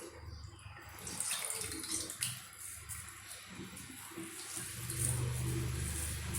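Water running and splashing, like a tap into a sink, with a low steady hum coming in near the end.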